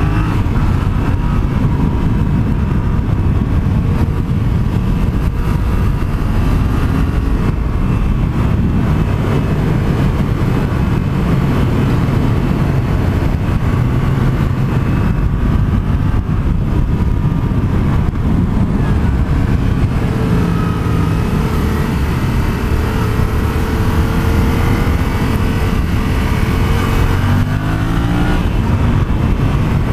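Yamaha FZ-07's parallel-twin engine running hard under load, its revs rising and falling through the bends, over a heavy rush of wind noise on the microphone. The revs climb steeply again near the end.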